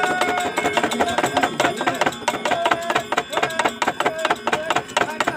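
Quick, irregular wooden knocking of a dalang's cempala against the wayang puppet chest, with Balinese gender wayang metallophone notes ringing behind it.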